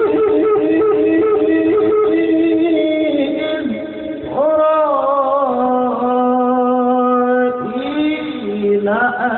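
A male qari chanting the Quran in the slow, melodic mujawwad style: long held notes ornamented with quick melismatic turns. A new phrase starts with a rising note about four seconds in, and another near the end.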